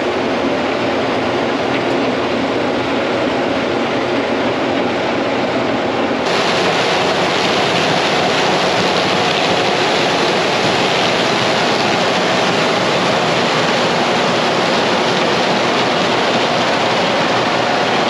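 Case IH 6088 combine running steadily while harvesting corn, its Drago corn head taking in the rows. About six seconds in, the sound shifts abruptly to a brighter, hissier wash.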